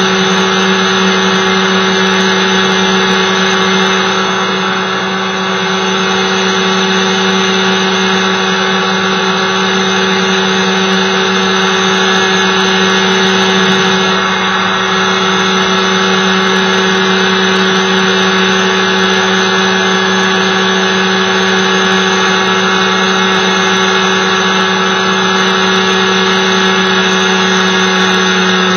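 Light aircraft's engine and propeller running steadily in cruise, heard close from a camera mounted on the aircraft, with a constant drone that holds one pitch.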